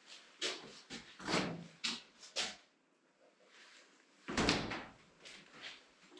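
A few light knocks, then a heavier thump about four and a half seconds in as a refrigerator door is worked.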